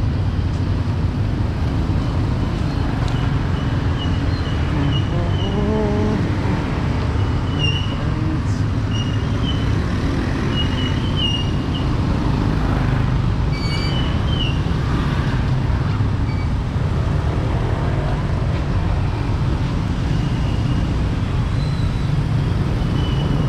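Steady street traffic noise, a dense low rumble of passing vehicles, with short high chirps now and then.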